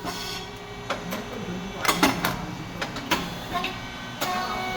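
SYP9002 CE rice cake machine running: a series of sharp mechanical clacks and pops from the press and moulds, the loudest about two seconds in, over a steady machine hum.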